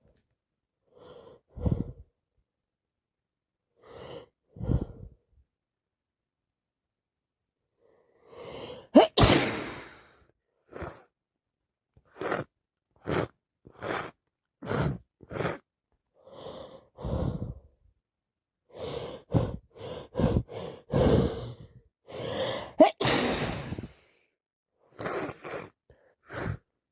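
A woman with a head cold, sneezing: gasping breaths build up to a loud sneeze about nine seconds in and another about two thirds of the way through, with a quick run of short, sharp breaths between them.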